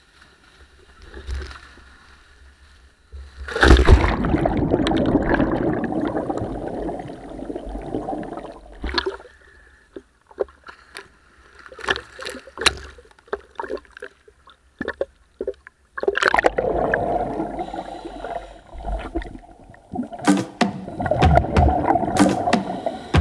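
Sea water splashing and churning as divers jump off a boat and the camera plunges in with them, a loud rush lasting several seconds. Then small waves slap and knock against the camera at the surface, and from about two-thirds of the way in a second long stretch of underwater rushing and bubbling comes as the divers descend.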